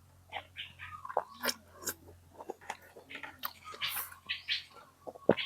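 A person eating beef noodle soup close to the microphone: irregular chewing and slurping, many short wet mouth sounds and clicks in quick succession.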